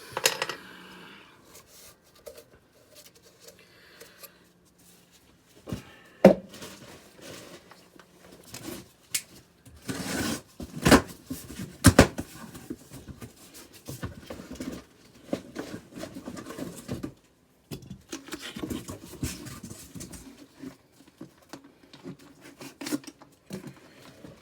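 Handling noise from the furnace's inducer motor and its parts: scattered clunks, clicks and rustling as pieces are set down and picked up, with the loudest knocks about six seconds in and a cluster around ten to twelve seconds in.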